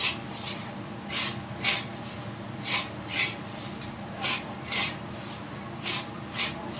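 Fried banana chips tossed in a metal bowl to coat them with seasoning: a dry rustling swish with each shake, mostly in pairs about every second and a half. A steady low hum runs underneath.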